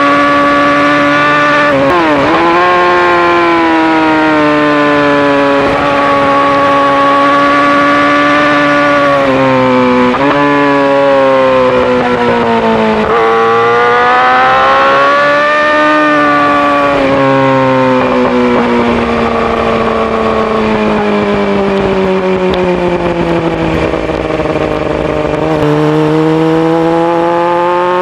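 A 2018 Yamaha R6's inline-four engine through an Akrapovic full-system exhaust, ridden hard on track. Its pitch climbs and falls again and again with the throttle and the gear changes. There are sudden drops about two, ten and thirteen seconds in, then a long slow fall as the bike slows, and it climbs again near the end.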